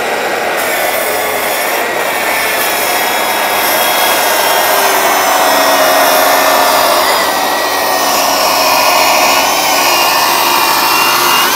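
Cordless TICHOP TPS-140BL-B plunge track saw cutting through a 30 mm MDF board along its guide rail. The blade is steadily under load, with a whining motor tone that shifts slightly in pitch partway through the cut.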